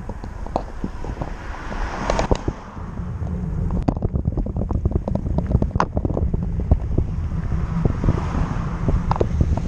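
Wind buffeting the microphone over a steady low rumble, with many small rattles and knocks like a bike riding over a rough path.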